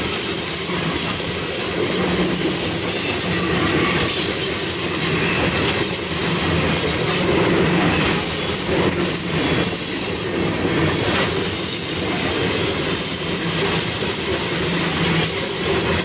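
Tank cars of a freight oil train rolling past, steel wheels on the rails making a steady, loud rumble with scattered clacks as the wheel sets go by.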